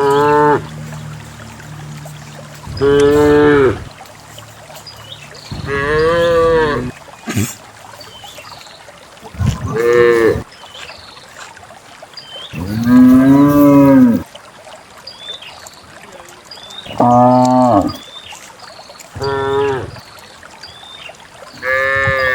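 Cows mooing: about eight loud calls a few seconds apart, each lasting about a second and bending up and down in pitch.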